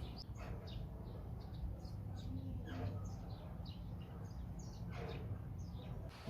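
Small birds chirping: many short, scattered chirps, over a steady low background rumble.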